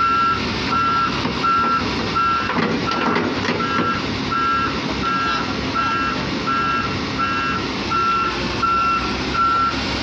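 Volvo wheeled excavator's reversing/travel alarm beeping steadily, about three beeps every two seconds, over the machine's running engine.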